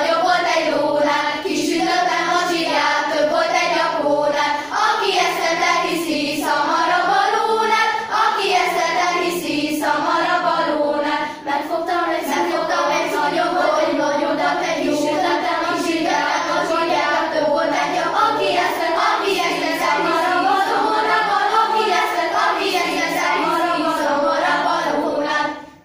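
Girls' school choir singing, with several young voices together; the singing stops near the end.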